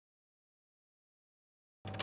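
Dead silence, then just before the end a logo-animation sound effect cuts in suddenly: a steady low hum with rapid fine clicks over it.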